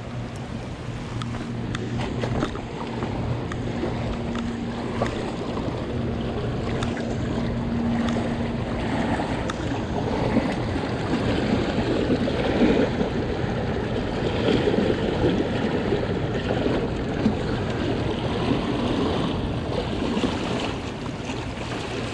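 Steady rush of flowing water with a low hum beneath it; the water sound turns rougher and a little louder about nine seconds in.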